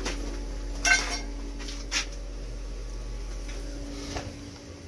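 Steel combination spanners clinking in a plastic wrench-set tray as a 14 mm spanner is picked out: two sharp metallic clinks about one and two seconds in, over a low steady hum that fades near the end.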